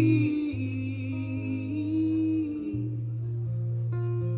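Live band music between sung lines: steady held notes over a low sustained tone that breaks and restarts twice, with the tail of a held sung note at the start.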